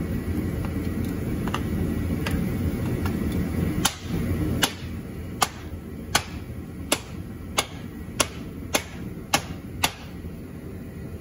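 A two-pound sledgehammer tapping a block of wood held against the end of a Trinity Stage 5 exhaust muffler, driving the slip-joint pipes together to close the gap. About ten sharp knocks, roughly two-thirds of a second apart, starting about four seconds in. Before them a steady low rumble stops just as the tapping begins.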